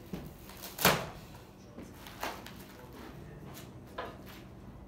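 A sharp knock or clatter about a second in, the loudest sound, then two fainter knocks, over a faint steady low hum.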